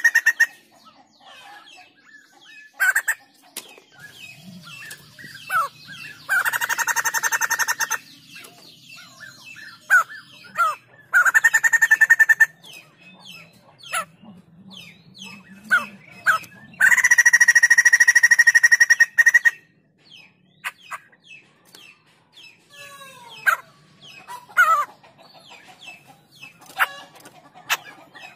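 White-crested laughingthrush calling: three loud bursts of rapid, pulsed cackling, each one to three seconds long, with short whistled and chirped notes in between.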